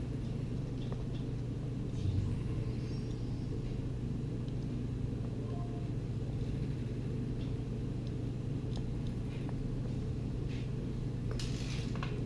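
Steady low hum with a few faint, light clicks and a brief rustle near the end.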